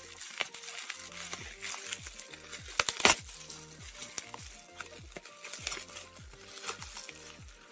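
Bubble wrap crinkling and crackling as hands handle and pull at the wrapping around a small boxed package, loudest in a burst of sharp crackles about three seconds in. Background music with a steady beat plays underneath.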